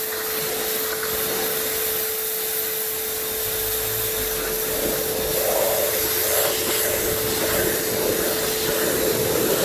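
Electric pressure washer running under load: a steady motor whine over the loud hiss of the water spray.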